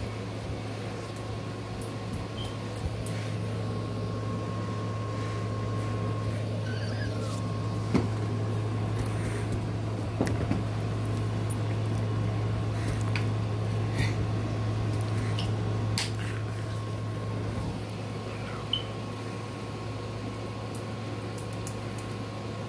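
Steady low hum of an electric fan running in a small room, with a few faint clicks and knocks.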